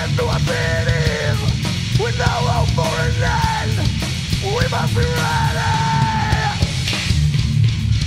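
Loud punk rock band recording with a sung vocal line over the band. The voice stops about a second and a half before the end while the band plays on.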